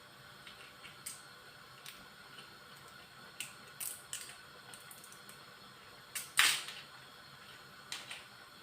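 Scattered light clicks and taps from spice containers being handled while seasoning meat, with one louder, longer rattle about six and a half seconds in.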